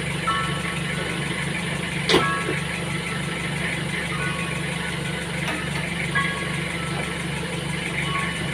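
Vehicle engine running steadily with a low, pulsing hum, and a single sharp click about two seconds in.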